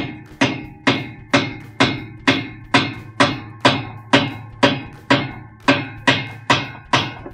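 Claw hammer striking the arm of a spanner wrench in a steady series of about two ringing metal blows a second, knocking a tight washer spanner nut loose counterclockwise.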